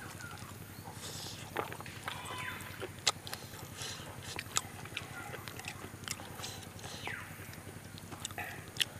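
Close-up mouth sounds of eating chicken and rice by hand: chewing with wet smacks and a few sharp clicks.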